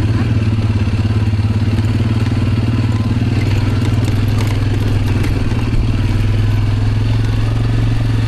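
Vehicle engine running steadily, a continuous low drone with no change in pitch.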